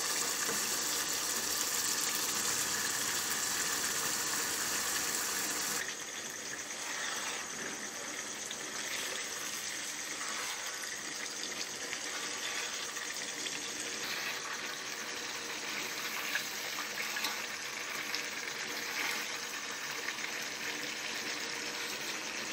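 Potato slices sizzling as they go into hot oil and yogurt masala in a kadai: a steady hiss that drops suddenly about six seconds in. Light scrapes of a silicone spatula come in as the potatoes are stirred.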